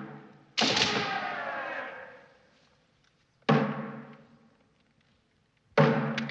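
Three single drum strikes, about three seconds apart. Each hits suddenly and rings out, fading over a second or two.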